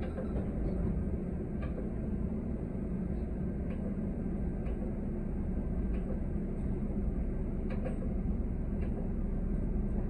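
Steady low engine and road rumble heard from inside a TTC city bus under way, with faint rattles and clicks now and then.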